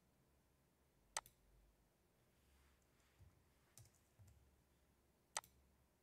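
Two sharp computer mouse clicks, about a second in and near the end, each followed at once by a softer second click, over near silence.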